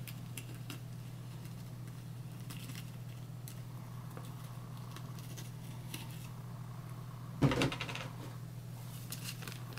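Steady low hum of a quiet room with a few faint handling clicks. About seven and a half seconds in comes a single soft thump, as the plastic water jug is set down.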